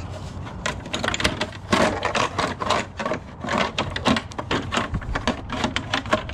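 Hands working at the plastic front cover of a Permobil M300 power wheelchair to pull it free: a run of irregular plastic clicks, taps and rattles.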